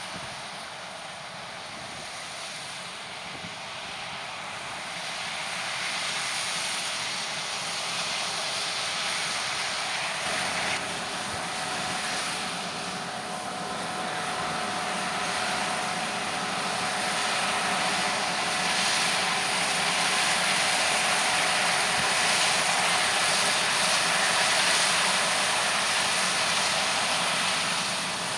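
Large farm machinery running at work, its engine and mechanical noise growing steadily louder as it draws nearer, with a faint steady whine coming in about a third of the way through.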